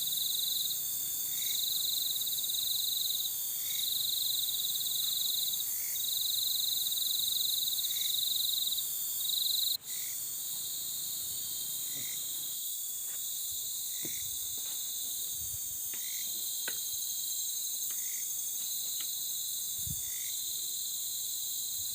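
Insect chorus: a steady high buzz with a lower chirring phrase that repeats about every two seconds. It breaks off briefly about ten seconds in, then carries on with a few faint clicks and knocks.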